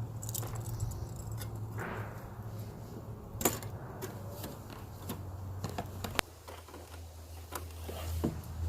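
Scattered light clicks and metallic clinks of hand tools being handled over a low steady hum, with sharper clicks a little over three seconds in and about six seconds in.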